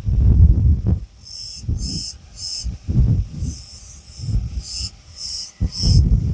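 Long fingernails stroking and scraping over a cicada close to the microphone, making repeated low rubbing sounds. From about a second in, the cicada buzzes in short high pulses, about two a second, some held a little longer.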